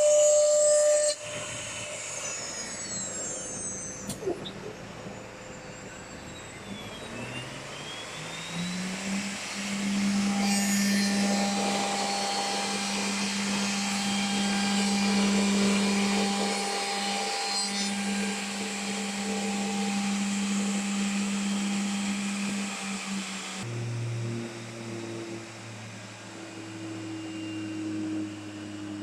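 Woodworking mortise-and-tenon machining center running, with a steady machine hum and cutting noise. About eight seconds in, a motor spins up in pitch to a steady hum; near the end the sound changes abruptly to a lower hum.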